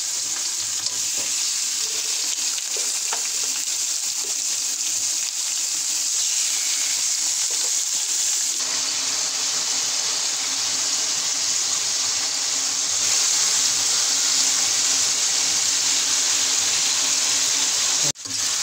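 Chicken pieces sizzling as they fry in hot oil in a karahi while being stirred with a spatula. The steady hiss grows louder about a third of the way through and cuts out for a moment near the end.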